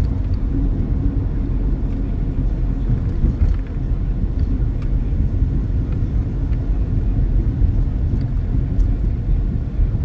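Steady low road and engine rumble heard from inside a car's cabin while driving on the freeway.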